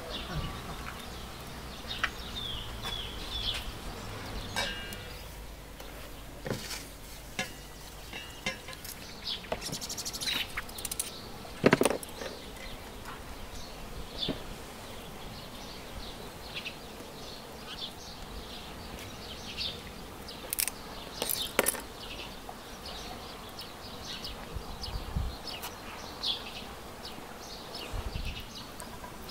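Outdoor ambience of small birds chirping and insects buzzing, with occasional sharp knocks and clicks from hands handling potatoes and a glass baking dish; the loudest knock comes about twelve seconds in.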